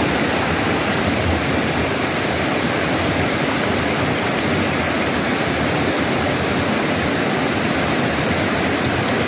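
Mountain valley stream, its water rushing steadily and loudly without a break.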